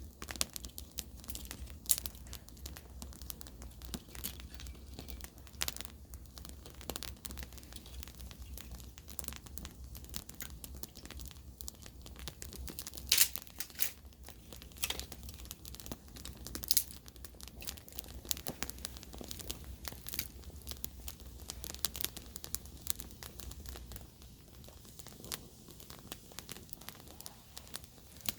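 Wood campfire crackling, with irregular sharp pops and snaps, the loudest about 13 and 17 seconds in, over a low steady rumble.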